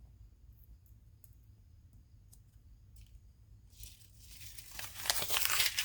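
Paper rustling and tearing as a sharp pocket knife blade slices through it: a few faint clicks, then about two seconds of slicing that grows louder and stops abruptly near the end.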